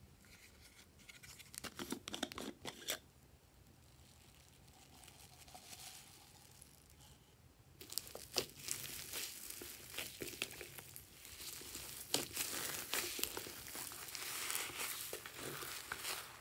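Foam beads in slime crackling and crunching as hands press and knead it. A few scattered crackles come early, then a dense, continuous crackle starts about halfway in.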